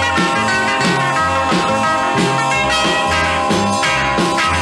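Background music: an upbeat band piece with a steady beat and no singing.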